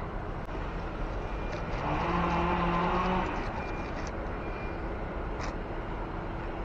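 Steady outdoor background noise, with a hum swelling for about a second and a half some two seconds in, and a few faint clicks.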